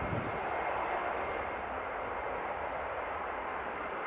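Jet engines of an Airbus A330 widebody airliner landing, a steady rushing noise as its main gear touches down, with a brief low rumble right at the start.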